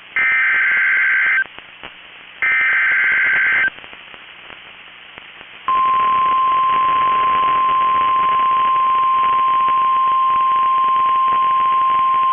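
NOAA Weather Radio SAME alert header: two short bursts of high-pitched data warble, about a second each. About six seconds in, the steady 1050 Hz warning alarm tone starts and holds, signalling that a new warning is about to be broadcast.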